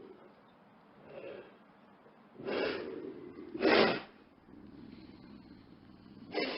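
Predator animal sound effect: short, noisy, breathy bursts with no clear pitch. There are two in the middle, the second louder, and another begins near the end.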